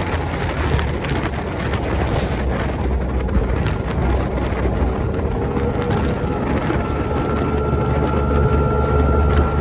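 Powerboat engine droning steadily while underway, heard from on board with rushing wind and water and a few short knocks. A steady higher whine joins about two-thirds of the way through.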